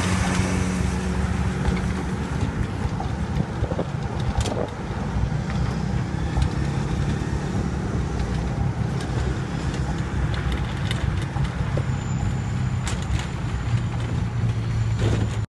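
Engine running and road noise heard from the open rear of a moving songthaew pickup-truck taxi, with a few sharp clicks and knocks; the sound cuts off suddenly at the very end.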